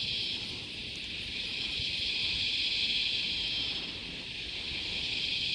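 Steady high-pitched insect chorus, swelling and easing slightly, with a low rumble of wind on the microphone underneath.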